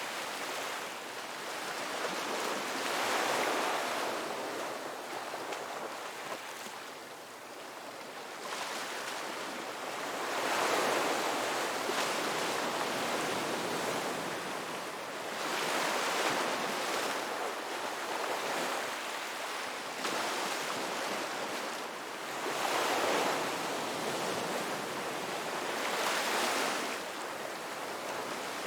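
Ocean waves breaking on a beach. The surf swells and washes in again every few seconds, with a steady hiss between the breakers.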